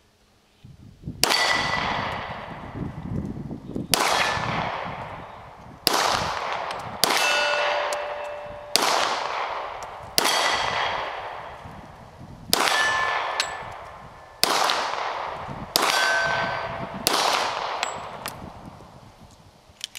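Springfield XD-40 .40 S&W pistol firing about ten slow aimed shots, one every one to two and a half seconds, each with a long echo. Several hits set steel targets ringing with a clear tone.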